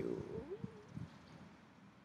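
A man's low, murmured voice trailing off during the first second, with a few faint clicks, then quiet room tone.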